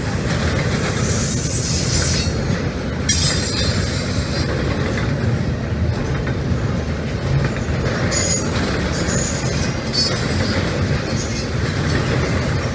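Double-stack intermodal freight train passing: a steady rumble of wheels on the rails, with high-pitched wheel squeal coming and going several times, strongest about three seconds in and again around eight to ten seconds in.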